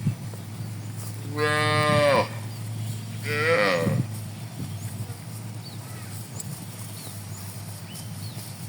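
A cow mooing twice, two drawn-out calls about a second apart, each sliding down in pitch as it ends.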